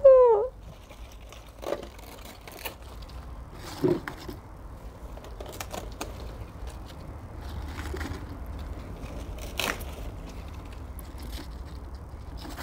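A cat meows once at the start, a short call falling in pitch. After it comes a knife cutting Swiss chard stalks, with scattered faint snaps and scrapes.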